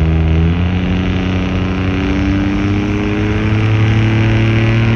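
Pulling pickup truck's engine running hard under load as it drags a weight sled down the track. Its pitch climbs slowly and steadily.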